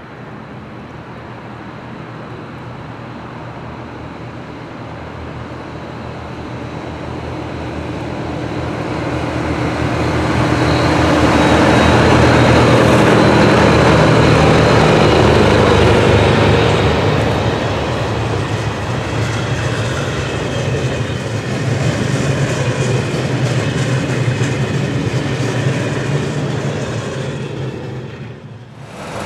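A train going by close at hand, growing louder to a peak about halfway through and then easing off. It has a steady low hum and rapid clicking from the wheels on the rails.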